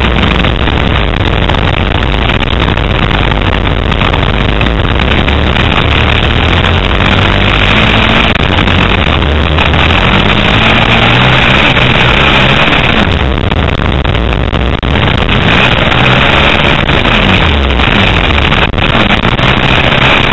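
Dirt bike engine heard from an onboard camera, revving up and falling back again and again as the rider works the throttle around a motocross track, under a constant rush of wind noise.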